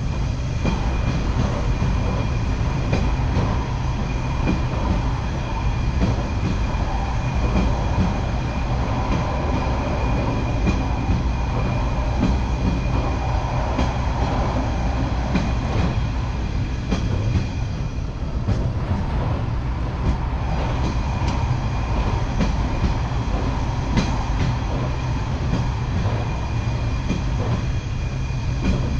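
Diesel rail vehicle running along the track at speed: a steady low running rumble with a thin whine over it and scattered light clicks from the rails.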